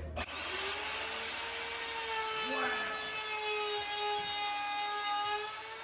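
Handheld electric router switched on at maximum speed: it spins up with a rising whine in its first half second, then runs at a steady high whine as the bit cuts into the wood, dipping a little in pitch now and then under load.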